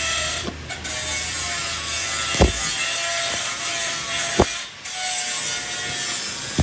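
Steady hissing work noise from metal-shaft repair, with faint steady tones in it. It is broken by two sharp knocks about two seconds apart and briefly drops away twice.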